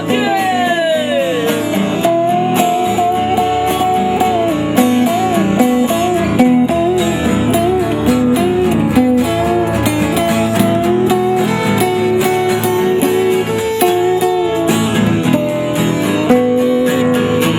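Instrumental break of a band's song: guitars playing chords under a lead melody line that bends and holds notes, opening with a falling slide.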